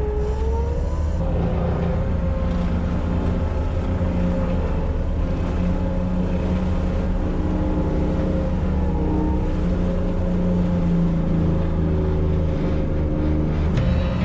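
Bobcat T870 compact track loader's diesel engine running steadily with its forestry mulcher drum spinning: a continuous machine hum and whine whose pitch dips and recovers slightly.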